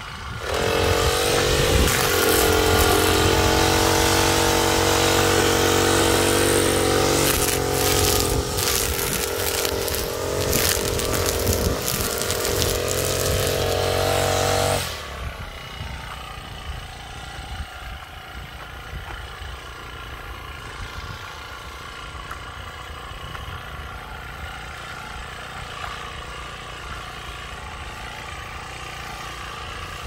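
Backpack brush cutter's small engine running at high revs for about fifteen seconds, then suddenly throttled back to a low, steady idle.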